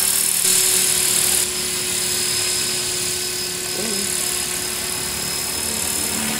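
Blade 400 electric RC helicopter in flight overhead: a steady high motor and gear whine with rotor hiss. The sound drops a little after about a second and a half as the helicopter climbs away.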